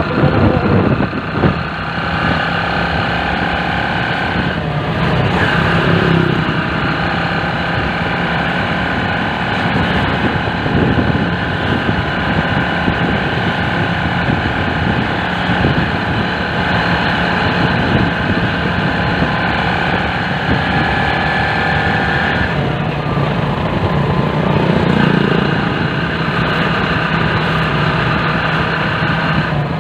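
A small motorcycle engine running steadily while riding, with wind and road rumble. The engine note dips and changes briefly about four seconds in and again past the twenty-second mark.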